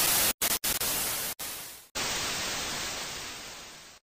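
TV-static sound effect: loud white-noise hiss that drops out for split seconds a few times in the first two seconds. A second burst of static then fades away gradually and cuts off.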